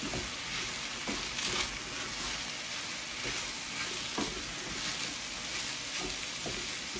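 Pearl barley, mushrooms and vegetables sizzling steadily in a stainless steel sauté pan as they are stirred. A spoon scrapes across the pan bottom in a handful of short strokes, loosening the bits stuck there.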